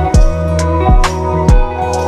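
Background music with a steady beat: deep kick drum and bass under a sustained melody.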